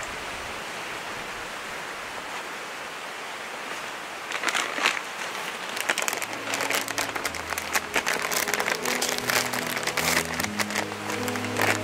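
Coffee milk pouring from a carton in a steady stream into a titanium mug of milky coffee, a steady splashing hiss that stops about four seconds in. Sharp clicks and crackles follow, and background music comes in about six seconds in.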